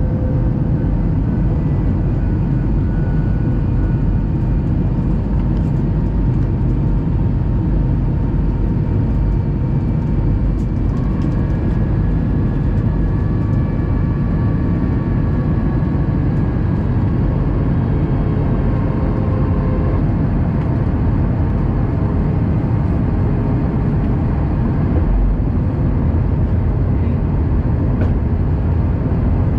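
Jet airliner cabin noise at a window seat during the descent toward landing: a steady rush of airflow and engine drone, with faint engine tones that drift slowly in pitch.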